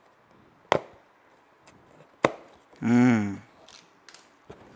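Two sharp snaps, about a second and a half apart, as the taped end of a cardboard box is slit with a box cutter and its flaps pulled open. A brief hummed vocal sound follows about three seconds in.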